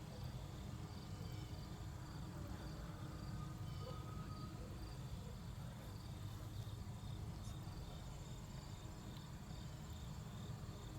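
Crickets chirping in a steady, high-pitched pulsing rhythm over a low background rumble.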